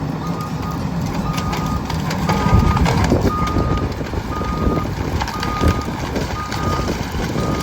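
Cat 320E L excavator's travel alarm beeping about once a second, one steady tone, over the machine's diesel engine running under load. There is a loud burst of crunching and cracking about two to three seconds in as the cedar tree is pushed over.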